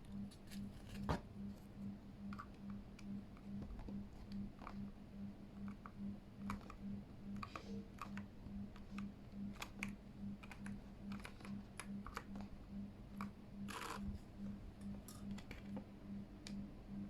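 Scattered light plastic clicks and taps from a mechanical keyboard and its keycaps being handled, coming irregularly a few at a time over a faint low hum that pulses a few times a second.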